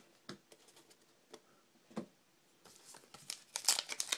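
A few faint taps of trading cards being handled, then, from a little under three seconds in, the crinkling and tearing of a card pack's wrapper being opened, growing louder toward the end.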